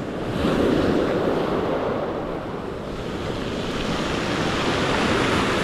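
Small surf waves breaking and washing up a pebble beach, with wind on the microphone. The wash swells about half a second in and again near the end.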